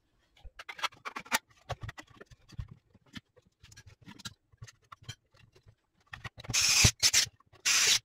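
Handling noise: a run of light clicks, taps and scrapes as a small heater box is picked up and turned in the hands on a workbench. Near the end come two loud bursts of hiss, each about a second long, that stop abruptly.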